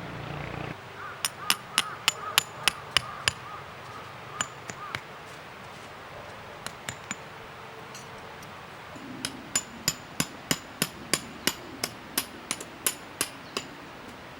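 Tent pegs being hammered in: two runs of sharp strikes, about three a second, with a few lone strikes in the pause between.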